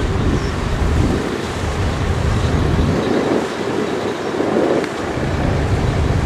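A low, uneven rumble that swells and fades every second or two, over a steady noise haze.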